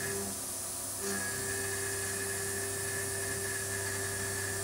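Tormach 770M CNC mill spindle slotting a metal part with a 1/4-inch four-flute ball end mill at 6,000 RPM: a steady high-pitched cutting whine over a low hum, breaking off briefly near the start and resuming about a second in.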